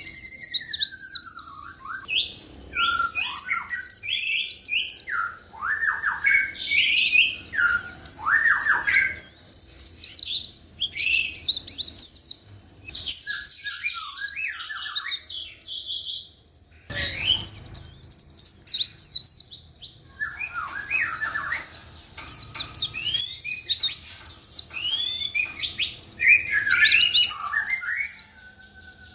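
White-eye (pleci) singing a long rolling song of rapid high chirps and quick downward-sweeping notes. The song comes in runs of several seconds with short pauses between them.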